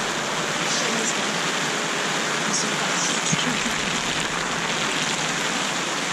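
Heavy rain pounding on the fabric of a Gazelle T4 hub tent, heard from inside: a steady, even hiss.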